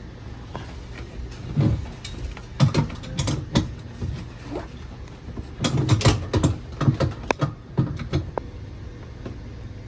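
Plastic faucet mounting nut being turned and tightened by hand under a bathroom sink: irregular clusters of small clicks, creaks and scrapes of plastic against the sink and the faucet's fittings.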